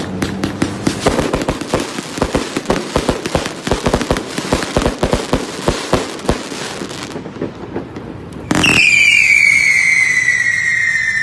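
A 138-shot, 1.2-inch consumer fireworks cake firing a rapid string of bangs and pops for about seven seconds. After a short lull, a loud shrill whistle starts about eight and a half seconds in and falls slowly in pitch.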